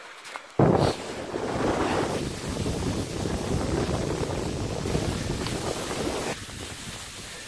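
Wind buffeting the microphone as a loud, rumbling rush that starts suddenly about half a second in and drops away abruptly near the end.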